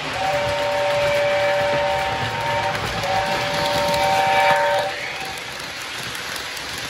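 Lionel LionChief Hogwarts Express toy locomotive's onboard speaker sounding an electronic steam whistle: two long chord blasts, the second ending about five seconds in. A steady hiss and rumble from the train running carries on underneath and after.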